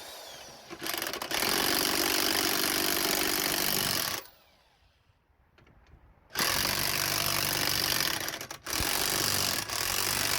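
A power tool running hard in long bursts with a rapid hammering buzz. It runs for about three seconds, stops for about two, then starts again and keeps going with one brief break.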